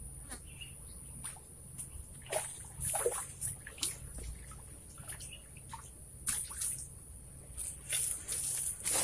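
A hooked red tilapia splashing at the surface of a creek as it is played on a bamboo pole: a string of short, irregular splashes starting about two seconds in.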